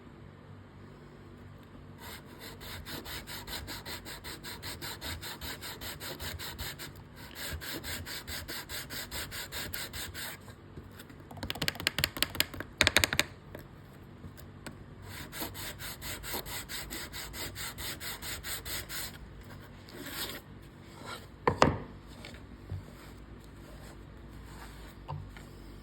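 Unbleached bone guitar nut being sanded, rubbed back and forth in quick, even strokes with a couple of short pauses. There are a few louder clacks about halfway through and a single knock later, as the nut is handled.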